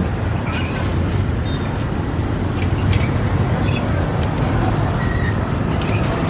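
Steady low rumble of street traffic, with scattered short clicks and knocks.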